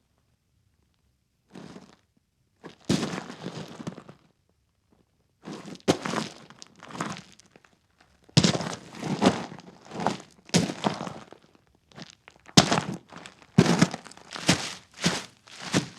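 Footsteps in boots, in short runs separated by pauses, each step a noisy scuff; in the longer runs the steps come about every 0.7 s.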